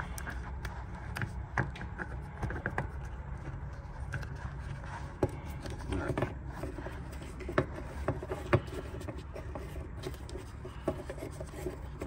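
Power seat switch being pried and pulled apart by hand against a wooden workbench: scattered small clicks, scrapes and rubbing of the plastic housing and brass contacts, over a steady low hum.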